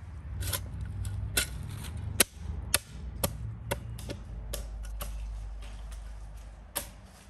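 Garden spade digging and scraping through loose soil, with a series of sharp clicks as the blade strikes clods and stones, roughly two a second.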